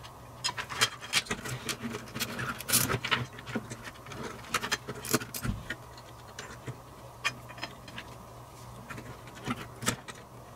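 Plastic wire-harness connector and loose wires handled and pushed onto a circuit board's header pins: a run of small irregular clicks and rustles, thickest in the first half and sparser later.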